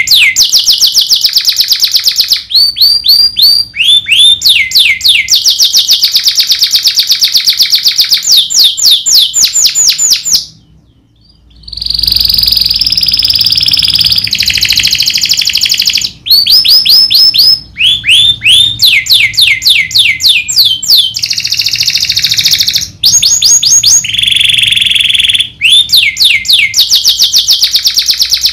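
Domestic canary singing loudly in long rapid trills or rolls, each made of many quick downward-sweeping notes, with buzzy held phrases between them. It breaks off for about a second roughly ten seconds in, then carries on.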